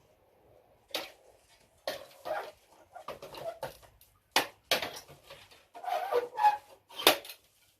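Handling noise of a computer motherboard being wiggled and pried out of its metal case: a string of irregular knocks, clicks and scrapes, with a short squeak about six seconds in.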